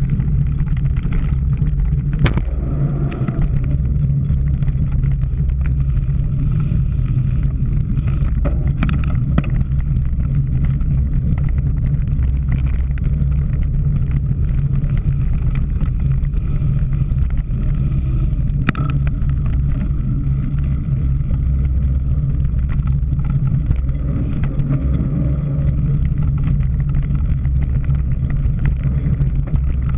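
Steady low rumble of wind and riding noise on a camera carried on a cyclocross bike during a race, with a few sharp knocks as the bike goes over bumps.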